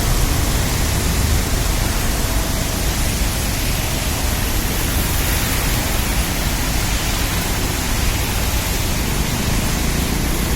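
Floodwater rushing along in a strong current, a steady even rushing noise.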